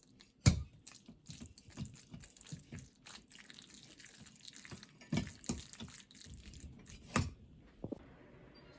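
Water dripping and trickling, with a series of knocks and clinks of objects being handled; the loudest knock comes about half a second in, with more around five and seven seconds in.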